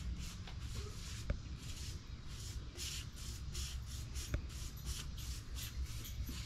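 Quick repeated rubbing strokes, about three a second, as polyurethane is spread over carved wood, with a low steady hum underneath.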